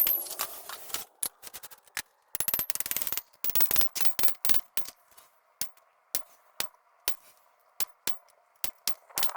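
Sharp, irregular knocks and clicks of hand tools striking tile and old mortar as debris is cleared from the patio. The knocks come in quick clusters at first, then thin to about one or two a second, over a faint steady hum.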